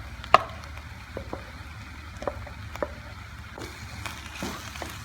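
Utensil clicking and knocking in a frying pan as mushrooms are added and stirred into a mussel sauce, with a light sizzle; the sharpest click comes about a third of a second in.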